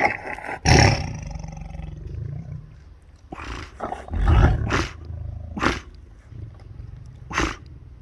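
Tiger snarling and roaring at its food: a loud roaring growl in the first second, then more roars about three to five seconds in and two shorter ones near the end.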